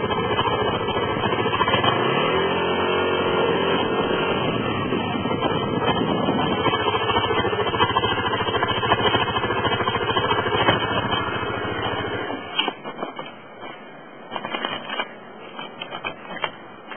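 Water-cooled Tigra 125 scooter being ridden, its engine and riding noise running steadily. The scooter has an intermittent abnormal noise while riding. About 12 seconds in the sound drops sharply to a much quieter, uneven noise with scattered knocks.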